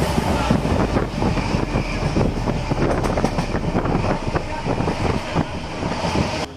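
Passenger train coach running at speed: a dense rattle and clatter of the wheels and carriage, with wind buffeting the microphone. The sound cuts off suddenly near the end.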